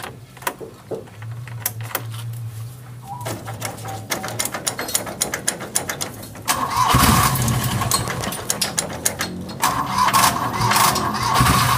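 Starter motor cranking the Mitsubishi L100 Minicab's two-cylinder engine, in two long bursts: the first about six and a half seconds in, the second shortly before the end, with light clicking at the key before them.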